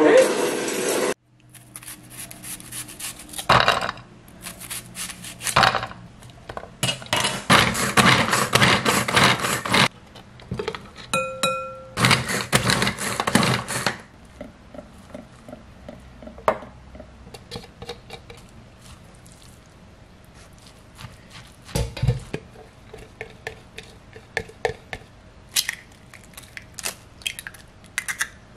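Pull-cord manual food chopper being yanked in several bursts, its blades whirring and clattering through vegetables. Quieter clinks and knocks of kitchen utensils against bowls follow, with one dull thump.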